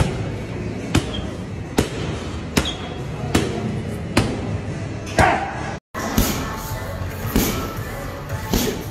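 Boxing gloves smacking into focus mitts: a run of sharp slaps about a second apart at first, then quicker and uneven after a short break in the sound about six seconds in, with music playing underneath.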